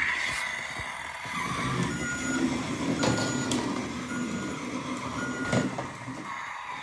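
Road Rippers battery toy vehicle driving in reverse, with its low engine sound effect and four electronic reversing beeps about a second apart. There is a sharp click right at the start.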